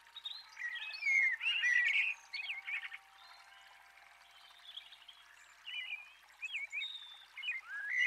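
Songbirds chirping and calling: a busy run of quick chirps, sliding notes and short trills in the first three seconds, a quieter spell, then more short calls near the end. Faint steady thin tones run underneath.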